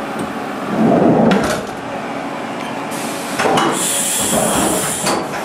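Haas VF-2 CNC mill between operations, most likely changing from the tap to the deburring tool: clunks and clicks about a second in, then a high steady hiss for about a second near the end.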